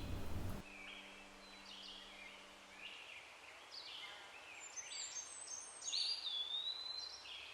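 Faint forest birdsong: scattered short chirps, with a whistled note about six seconds in that rises and then slides down. A low held background tone dies away about three seconds in.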